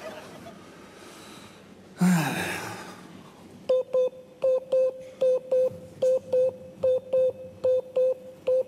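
A sudden loud whooshing noise falling in pitch about two seconds in, then, from about four seconds in, a run of short electronic beeps at one steady pitch, unevenly spaced in ones and twos.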